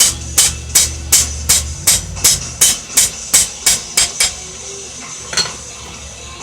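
Blacksmith's hammer striking steel on an anvil in a steady rhythm of about three blows a second. The blows stop about four seconds in, with one last blow a second later.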